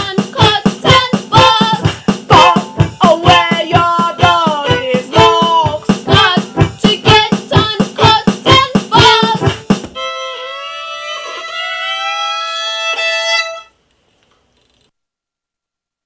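Band music: a loud, driving beat under a lead line with bending notes. About ten seconds in the beat stops and a held note with sliding pitch rings on, then cuts off about three and a half seconds later into silence.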